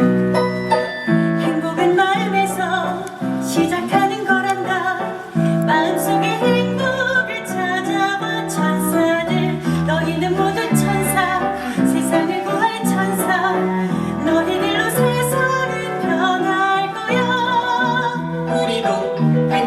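Musical-theatre song: a singer, likely a woman, with piano and instrumental accompaniment.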